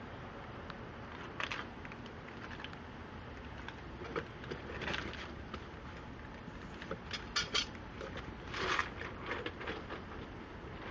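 Short, irregular scrapes and clicks of hands and tools working threaded gas pipe fittings, as a pressure-test gauge is fitted to the line.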